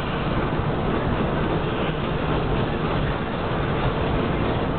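Tram running along the street track, heard from inside the car: a steady noise of wheels on the rails and the running gear.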